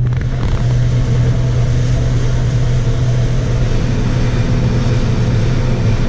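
John Deere combine running at work, a steady low hum with an even hiss over it.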